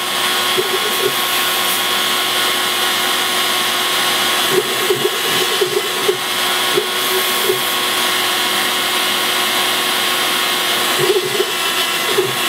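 CNC router's spindle and cutter running continuously while cutting particle board: a steady whine over dense hiss, wavering briefly at times.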